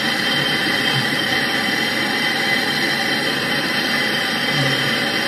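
MAPP gas hand torch burning with a steady hiss as it heats a copper tube to red for brazing with silver rod.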